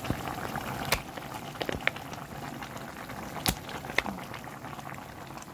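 Broth with beef and vegetables boiling in a pot, bubbling steadily, with a few sharp clicks over it, the loudest about three and a half seconds in.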